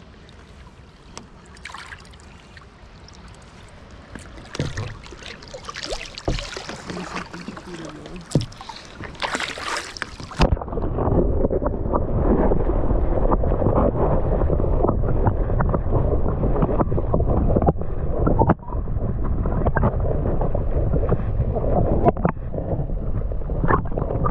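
Water sloshing and splashing around kayaks, with scattered clicks. About ten seconds in, the sound abruptly turns into a loud, muffled underwater rumble as the microphone goes below the surface.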